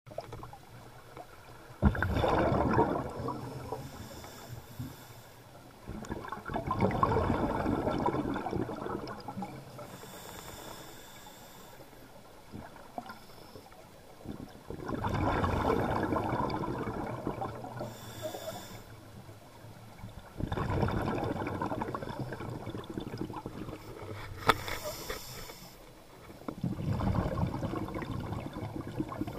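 Scuba diver breathing through a regulator underwater: five rumbling bursts of exhaled bubbles, each two to three seconds long, spaced several seconds apart, with short hissy breaths in through the regulator between them.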